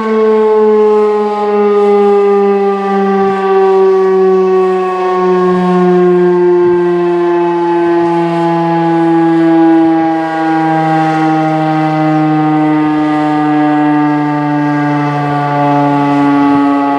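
Federal Signal STH-10 electromechanical fire siren winding down, its loud tone sliding slowly and steadily lower in pitch.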